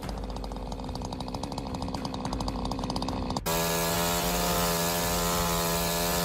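Two-stroke chainsaw engine ticking over fast and evenly, gradually getting louder. About three and a half seconds in, it cuts abruptly to a chainsaw running at a steady high speed with a strong, even pitch.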